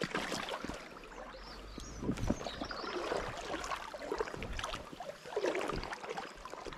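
Footsteps crunching and knocking on the stones of a rocky lakeshore, uneven, with a few louder steps about two, three and five and a half seconds in.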